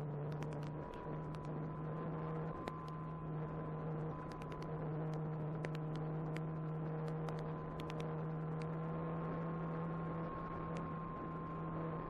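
A steady hum with a fainter, slightly wavering higher tone and scattered crackling clicks throughout, typical of the audio on an FPV flight recording.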